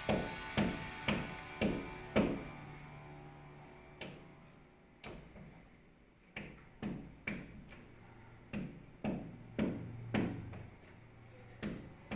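Background music of evenly spaced plucked notes, about two a second, thinning out in the middle and then picking up again.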